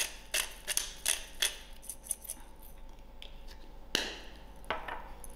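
Hand-twisted pepper grinder grinding peppercorns: a quick run of short rasping clicks, about three a second, fading out after a second and a half, then two single sharper clicks near the end.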